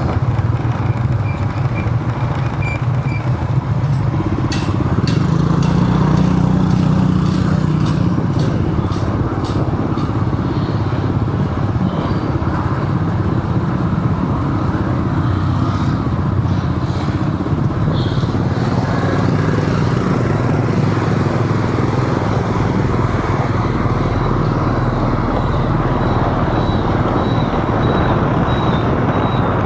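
Steady engine and road noise of a vehicle driving along a city street, with a few faint clicks about five to nine seconds in.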